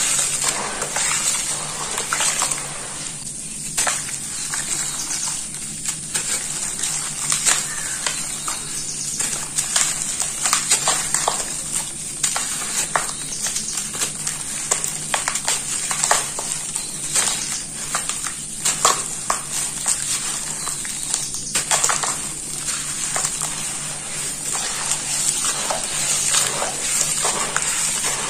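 Handfuls of dry red dirt crumbled by hand into a bowl of muddy water: a dense run of gritty crackles and small splashes as the crumbs drop in. Near the end, hands slosh through the wet mud.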